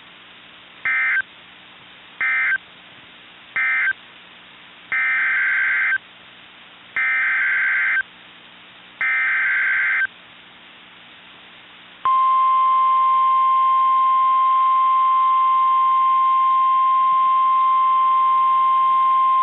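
NOAA Weather Radio Emergency Alert System tones. First come three short SAME data bursts, the end-of-message code closing the severe thunderstorm warning. Then come three longer SAME header bursts of about a second each announcing a tornado warning, and about twelve seconds in the steady 1050 Hz weather-radio warning alarm tone starts and holds.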